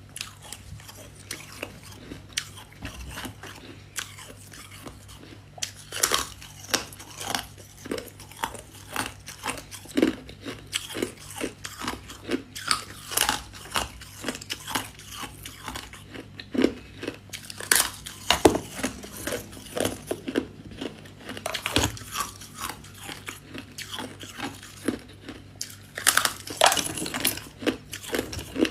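Close-up crunching of freezer frost being bitten and chewed: a quick, irregular run of crisp crunches with louder bites now and then. A faint steady low hum runs underneath.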